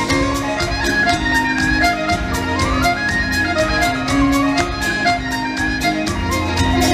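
Live Celtic band playing a fast instrumental tune: a piano accordion carries the melody over strummed acoustic guitar and a steady drum beat.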